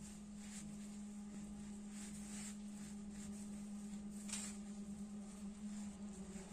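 Faint rustling and soft scraping of fingers crumbling pounded dried meat on a stone slab, a few light scrapes spread through, over a steady low hum.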